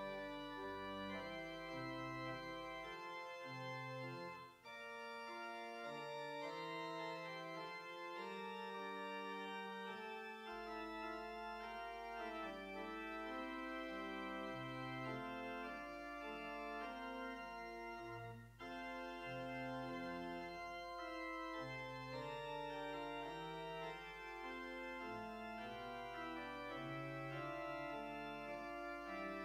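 Church organ playing slow, held chords, with short breaks between phrases about four and a half and eighteen and a half seconds in.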